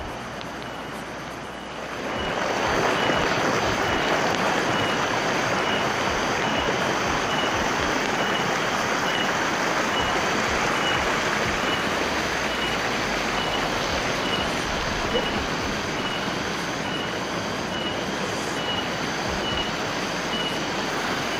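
Water of a small cascade pouring over rocks: a steady rushing that grows louder about two seconds in. A faint high chirp repeats about once a second behind it.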